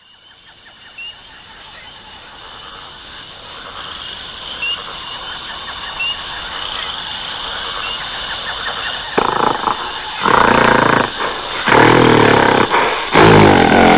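Jungle sound-effect ambience of bird chirps over a steady high hum fades in and swells. From about nine seconds in, a giant gorilla's deep growls and roars come in four or five loud bursts.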